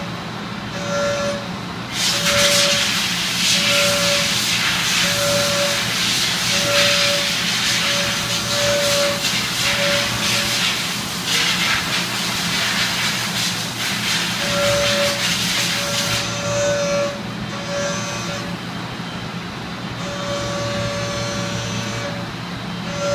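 A machine tool high-speed machining 15-5 stainless steel, with a steady hum and a short tone recurring about once a second as the cutter works. A loud hiss comes in about two seconds in and stops around two-thirds of the way through.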